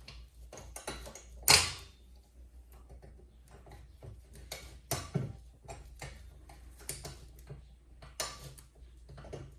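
Scattered light clicks and knocks of metal parts being handled on a car pedal assembly, with one sharper knock about one and a half seconds in.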